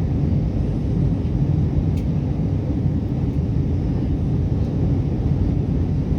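Steady low rumble of a jet airliner's engines and airflow heard inside the passenger cabin during descent.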